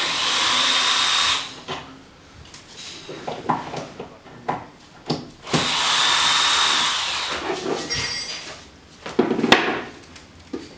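Cordless drill driving screws into the wall: two runs of about a second and a half each with a steady high whine, about five seconds apart. Knocks and handling clatter between them, with a loud knock near the end.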